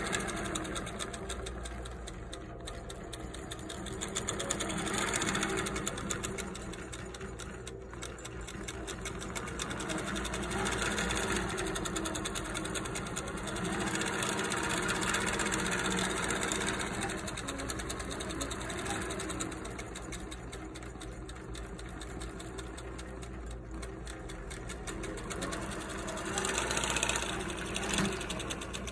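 Long-arm quilting machine stitching through the layers of a quilt: a fast, even run of needle strokes that grows louder and softer by turns as its stitching speed changes.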